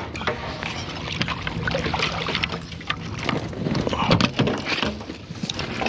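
Water splashing, with several knocks, as a catfish is scooped up in a landing net and lifted over the side of a boat.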